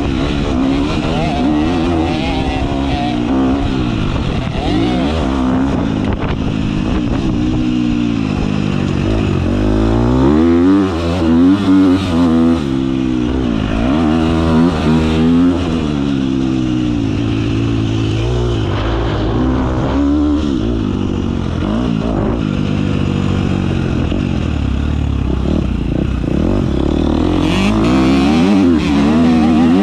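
Motocross bike engine revving hard and repeatedly rising and falling in pitch as it is ridden through the gears and off the throttle around a dirt track, loudest in a few bursts about ten to fifteen seconds in.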